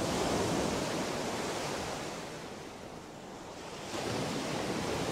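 A rushing noise that swells, eases off about three seconds in, then rises again just before four seconds in.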